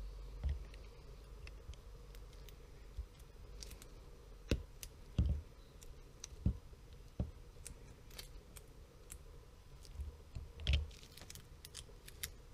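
Clicks and light metallic knocks of circlip pliers and a new snap ring being worked onto a Ducati 848 gearbox shaft, irregular, with a handful of sharper knocks among them.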